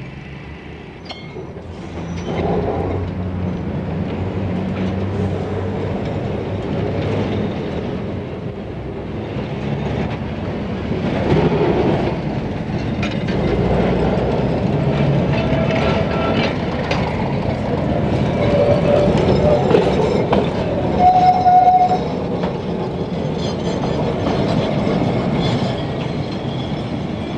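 Bombay electric tramcar running along street track, a steady rumble of wheels on rail that grows louder about two seconds in. A few short steady horn-like tones sound in the second half.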